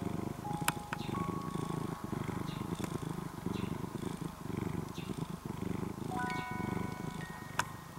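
Orange-and-white domestic cat purring close to the microphone, a steady low rumble that swells and dips about once a second.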